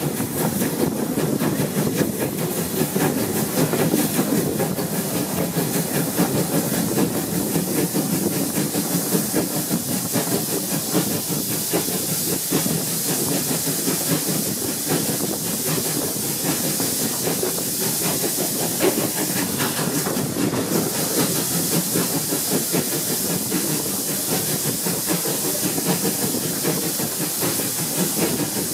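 Steam locomotive hauling a train, heard from a carriage window close behind: a steady hiss of steam and exhaust over the rattle of wheels on the track. The high hiss grows brighter about two-thirds of the way through.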